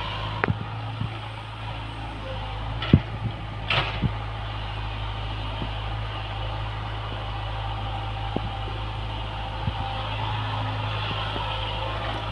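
Diesel engine of a tracked hydraulic excavator running steadily at work as it scoops sand and loads a tipper truck. A few sharp knocks come about three to four seconds in.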